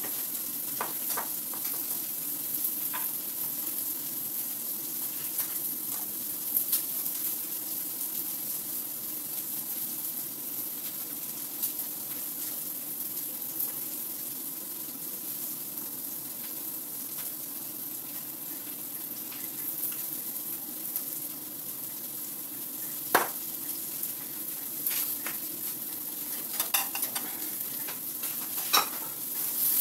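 Food sizzling steadily in a frying pan, with scattered clinks of dishes and utensils; the sharpest clink comes about two-thirds of the way in, another near the end.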